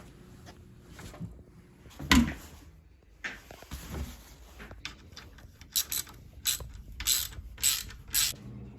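Mechanical ratcheting clicks from seat hardware being worked: a knock about two seconds in, then a quick run of about six sharp clicks near the end.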